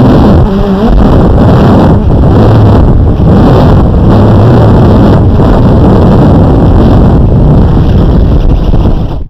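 Blade 350 QX quadcopter's motors and propellers whirring loudly up close, heard from the GoPro mounted on it, with wind buffeting the microphone. The motors cut off suddenly near the end as the drone sets down.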